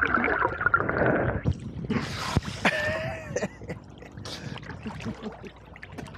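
Muffled underwater gurgling and bubbling from a submerged action camera, then splashing about two seconds in as the camera breaks the surface, followed by lighter water lapping at the waterline.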